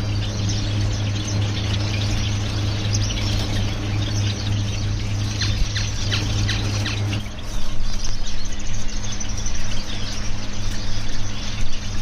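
A mixed aviary of caged finches, including Gouldian and zebra finches, chirping: many short, high calls overlapping, busier and louder in the second half. A steady low hum runs underneath, stronger for the first seven seconds or so.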